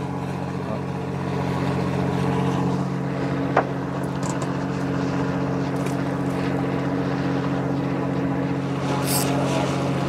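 Fishing boat's engine running steadily, an even low hum, with one sharp click about three and a half seconds in.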